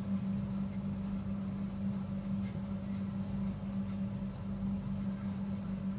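Steady low hum, with a few faint light clicks as a metal crochet hook is worked through yarn.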